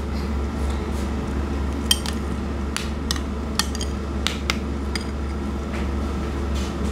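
A metal spoon clinking against a ceramic bowl while stirring a dip: a string of light, separate clinks between about two and five seconds in. Under it, the steady hum of a running air fryer.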